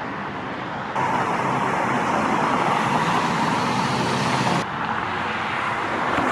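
Road traffic noise: a steady wash of passing cars, louder from about a second in until it drops back abruptly near the end.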